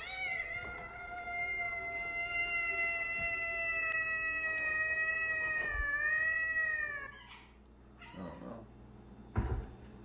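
A domestic cat giving one long, drawn-out meow of about seven seconds, held at a steady pitch that dips slightly just before it stops. A short low thump follows near the end.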